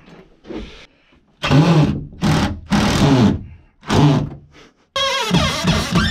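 Cordless drill driving screws in a series of short trigger bursts, the motor's pitch rising and falling with each one, the last run longer, about five seconds in.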